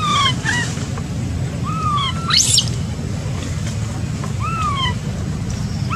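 Baby macaque crying: short rising-then-falling coo calls repeat about every two and a half seconds, with one shriller squeal about two and a half seconds in. A steady low rumble runs underneath.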